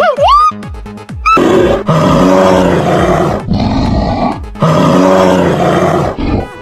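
A large wild animal roaring twice, each roar rough and about two seconds long, over background music with a steady beat.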